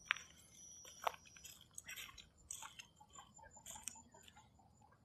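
Scattered light crunches and clicks of footsteps and movement on dry leaf litter and dirt, loudest just after the start and again about a second in.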